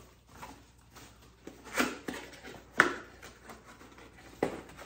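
Cardboard packaging handled during an unboxing: three short knocks and scuffs, the loudest about three seconds in.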